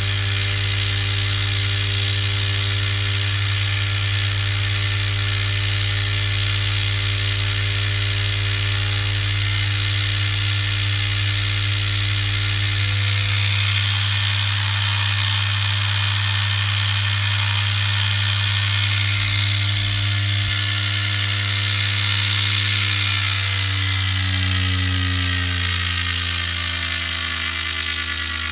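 Homemade transistor pulse motor's rotor spinning at about 6,000 rpm, a steady, loud buzzing whir. Over the last few seconds its pitch slides down as the rotor slows to about 5,000 rpm.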